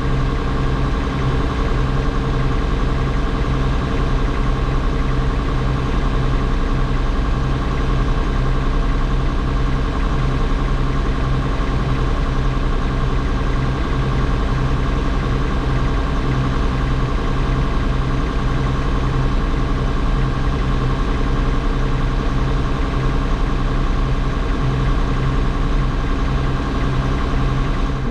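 John Deere 6620 combine's diesel engine running at a steady idle.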